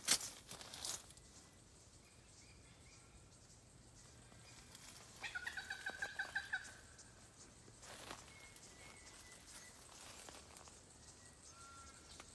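A bird calling outdoors: a rapid run of about eight short notes lasting a second and a half, about five seconds in, with a few faint single notes later. A brief rustling noise near the start.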